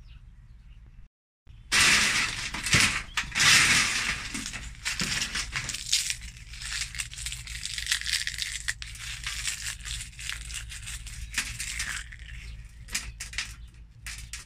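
Crisp, sun-dried banana skins crackling and crunching as they are handled and crushed by hand. The crackling starts about two seconds in, is loudest at first, then goes on more lightly and thins to a few scattered crackles near the end.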